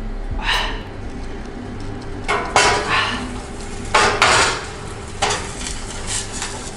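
Glass baking dish clattering and scraping on a wire oven rack as it is pushed in and shifted into place: several sharp clinks and scrapes, scattered a second or two apart.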